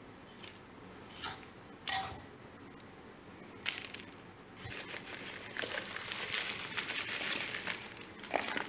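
Dry, loose potting soil being scooped and poured into a terracotta pot from a cut plastic bottle: a couple of short scrapes, then from about halfway through a dense rustling, pattering trickle of falling soil. A cricket trills steadily at a high pitch behind it.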